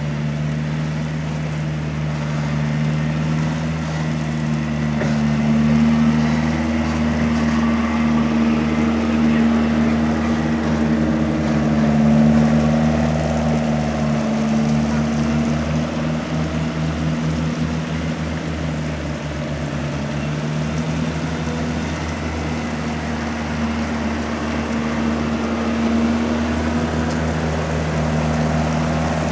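Helicopter tow tractors running steadily at a slow towing pace, a steady low engine hum that swells as they pass.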